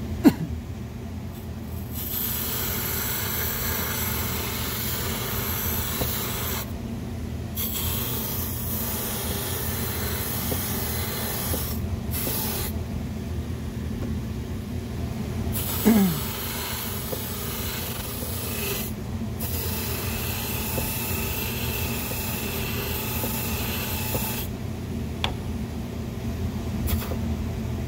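Variable speed bench buffer running with a cotton buffing wheel, its motor humming steadily, while a metal buffing-wheel rake scrapes the spinning wheel in long stretches of scratchy hiss with short pauses, tearing off caked polishing compound. A brief falling squeal about halfway through.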